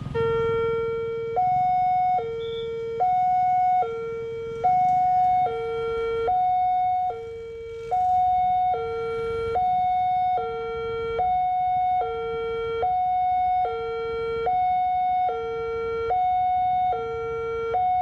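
Railway level-crossing electronic warning alarm sounding a steady two-tone hi-lo, a low and a higher tone alternating about every 0.8 seconds: the crossing is signalling an approaching train while the boom barrier comes down.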